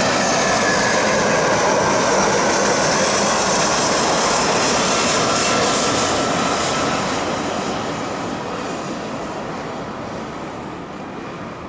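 Jet airliner on approach passing close by: a loud, steady rush of jet engine noise with a faint whine, fading away over the last five seconds as the plane moves off.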